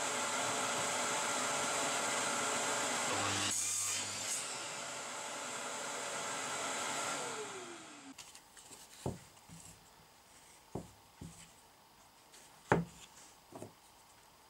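A workshop power tool's electric motor running steadily, then winding down with a falling whine. After it stops, several light wooden knocks as small wooden pieces are set down on a wooden bench.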